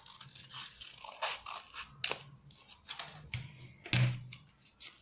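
Scissors snipping through folded paper, cutting out a leaf shape in a series of short, irregular snips. About four seconds in comes a louder knock.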